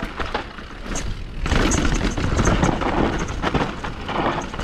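Ski or snowboard edges scraping and hissing over snow, with wind rushing across the microphone on a fast downhill run. It grows loudest about a second and a half in, with many small scrapes and clatters.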